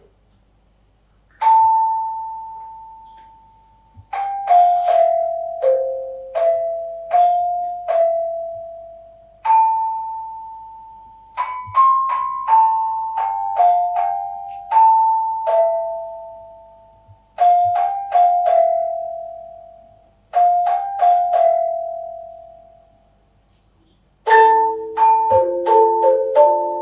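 Hand-cranked paper-strip music box playing a slow tune: single plucked metal notes that ring and die away one after another, with short pauses between phrases. About 24 seconds in, lower notes join and the notes come faster.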